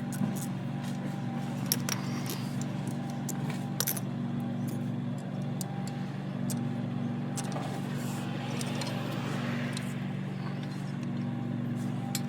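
Light metallic clicks and clinks of tools and brake parts being handled at a van's front disc brake caliper, a few scattered knocks and a rustling scrape about eight seconds in, over a steady low hum.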